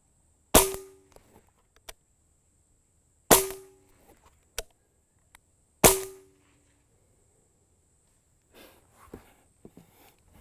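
Benjamin Maximus .177 pre-charged pneumatic air rifle fired three times, about two and a half seconds apart. Each shot is a sharp crack with a brief ringing tail, with small clicks between shots and faint handling rustle near the end.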